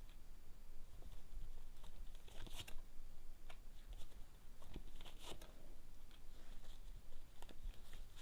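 Paper playing cards being handled: a few brief rustles and soft clicks as they are shuffled and laid out.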